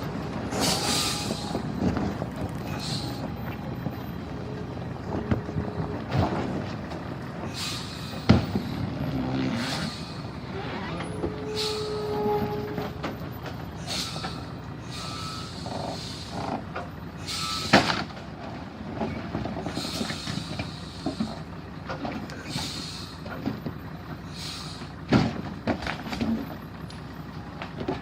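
Logging truck engine running low and steady, with repeated short hisses of air and a few sharp knocks.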